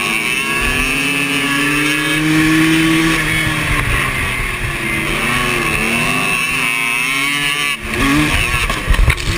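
Racing quad engines on a dirt track, heard close up from the rider's own quad: the engine pitch climbs, falls and climbs again as the throttle is worked through the corners, under a steady rushing noise. Near the end the engine note drops briefly, then a run of heavy low thumps follows.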